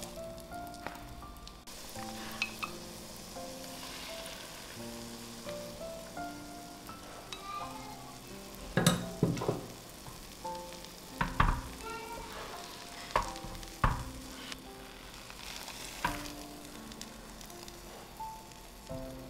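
Oil sizzling in a nonstick frying pan as a tofu and vegetable patty fries in beaten egg, with a few sharp clicks and scrapes of spatulas and chopsticks against the pan from about halfway through. A quiet background melody plays along.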